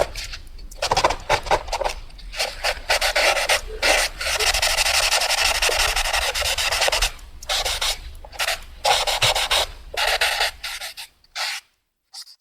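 Pencil scratching on paper in writing strokes: short strokes, then a long unbroken stretch of scribbling from about four to seven seconds in, then more short strokes that stop just before the end.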